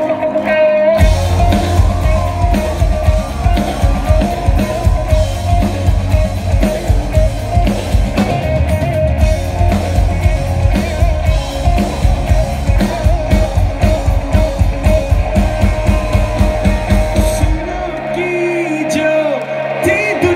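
A rock band playing live: drum kit, electric guitars and bass with a singer, loud and driving. Near the end the drums and bass stop and the song winds down.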